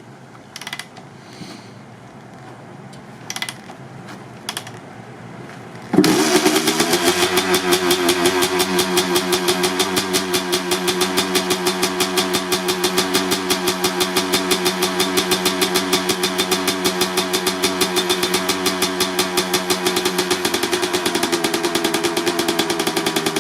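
A few short knocks, then about six seconds in the 1995 Honda CR250R's single-cylinder two-stroke engine fires on a cold start and runs steadily with a rapid, even pulsing beat through its Pro Circuit R-304 silencer.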